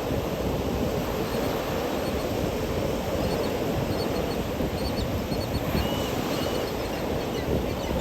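Ocean surf washing steadily onto a sandy beach. About six seconds in there are two faint, short high tones.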